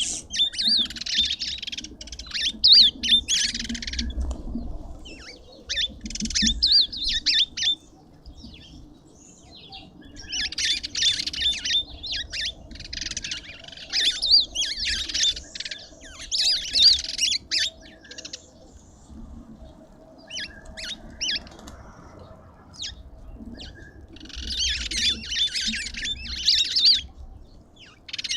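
Birds squawking and chattering in shrill bursts of one to three seconds, several times over, with short quieter gaps between them.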